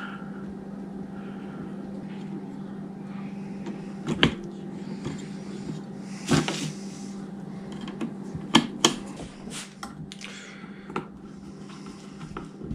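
Scattered clicks and knocks of hard plastic parts being handled and snapped together as the wind vane and wind cups are fitted to an Ambient Weather WS-2902C sensor array. A steady low hum runs underneath throughout.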